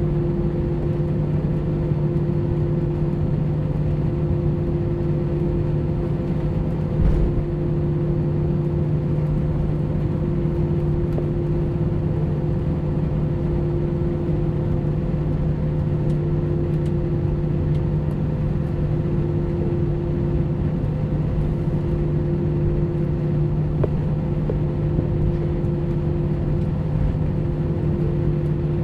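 Cabin noise inside a jet airliner taxiing: the engines running at taxi idle give a steady hum with several steady tones over a wash of noise. One short thump about seven seconds in.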